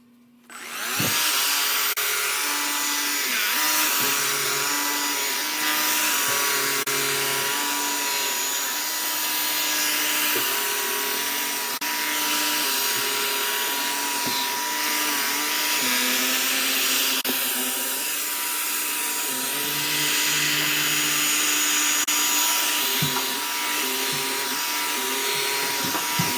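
Bissell Pet Hair Eraser lithium-ion cordless hand vacuum switched on about a second in and running continuously. It gives a steady high whine over a rushing hiss, and a lower hum that shifts in pitch now and then.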